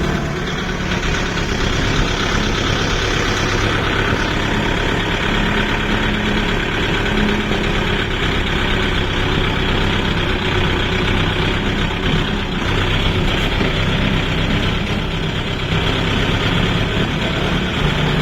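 Diesel engine of heavy farm machinery running steadily at a constant speed, with a low drone and a dense mechanical clatter.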